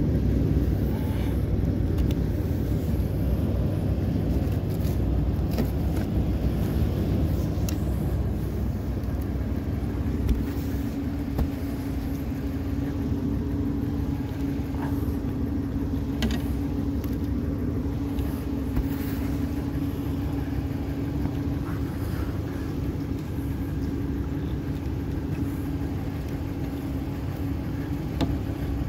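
Steady low rumble with a steady hum setting in about nine seconds in, under a few light scrapes and knocks of a snow brush sweeping wet snow off a car windshield.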